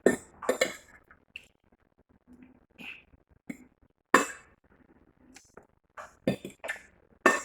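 A person eating close to the microphone: irregular sharp mouth smacks and clicks, the loudest about four seconds in and near the end, with an occasional clink.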